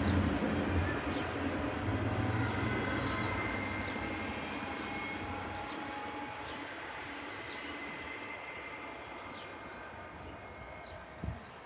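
InterCity 125 High Speed Train pulling away, its rear Class 43 diesel power car's rumble and the wheel noise fading steadily as it recedes, leaving a faint high whine. A short knock near the end.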